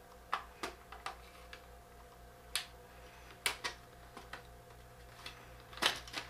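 Sharp plastic clicks as the snap clips of an Apple iBook G4's plastic bottom case are pried loose with a flat-tip screwdriver, a few scattered clicks with the loudest snap near the end.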